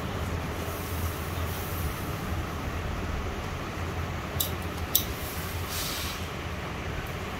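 Steam iron pressing cloth over a steady low mechanical hum. Two sharp clicks come about four and a half and five seconds in, then a brief hiss of steam near six seconds.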